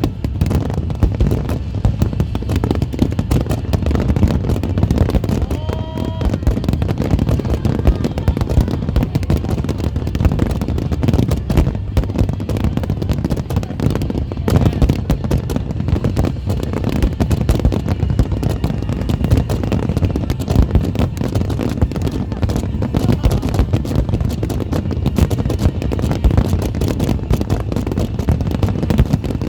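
Dense, unbroken crackling and rumbling of a fireworks barrage at a display's grand finale, mixed with heavy rain. A short whistle-like tone sounds about six seconds in.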